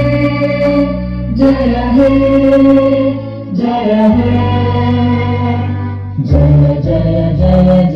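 Music with a sung or chanted melody over long held bass notes, the chord changing every second or two.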